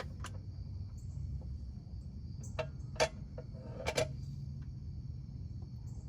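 A few short, sharp clicks and taps, the loudest about three and four seconds in, over a steady low hum and a faint high whine.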